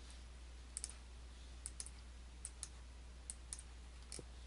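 Faint computer mouse clicks: about five quick pairs of clicks, roughly one pair every second, as lines are erased in a drawing program. A steady low electrical hum runs underneath.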